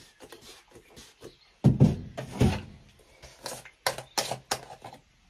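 Household objects being handled: a run of clicks and knocks, with two heavy thumps about two seconds in.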